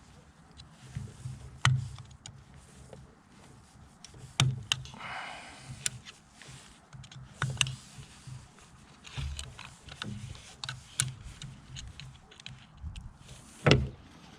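Scattered clicks and knocks of hand tools and metal motorcycle steering parts being handled, with a short scrape about five seconds in and a louder knock near the end.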